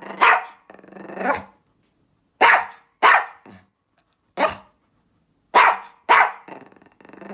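A dog barking repeatedly: about eight short barks with uneven gaps between them.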